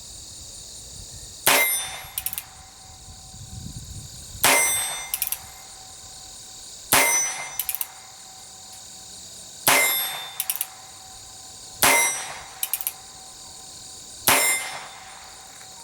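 Colt Frontier Scout single-action .22 Long Rifle revolver firing six shots, slow and spaced about two to three seconds apart. Each shot is followed about half a second later by a short metallic ring.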